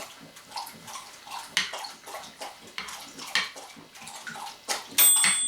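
A hound dog lapping water from a bowl in irregular wet strokes. About five seconds in, a toaster's bell rings once, bright and ringing: the toast is done.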